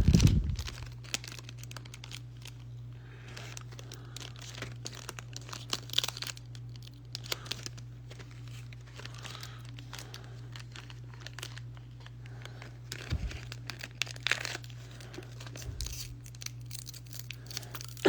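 Pokémon card booster pack wrapper crinkling and being torn open by hand from the side, with scattered crackles and rustles throughout and a low thump at the very start. A steady low hum runs underneath.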